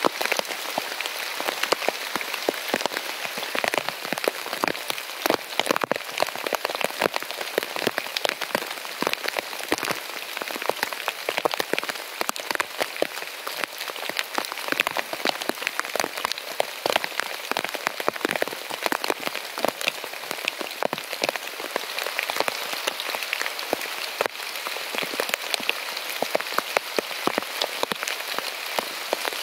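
Steady heavy rain falling on a tent, with a dense, unbroken run of sharp separate drop hits close by.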